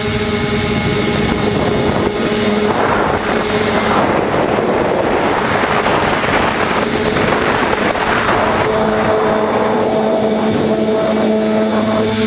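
Bambucopter Bluebird tricopter's electric motors and propellers whirring in flight, heard from the onboard camera, with a steady hum under heavy wind rush that is strongest in the middle. A higher tone joins about two-thirds of the way through as the motor speed changes.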